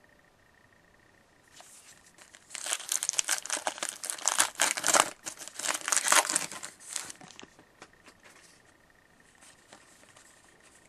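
Hockey card pack wrapper being torn open and crinkled by hand. It gives a few seconds of loud, crackly rustling starting about two seconds in, then fainter rustles as the cards are slid out.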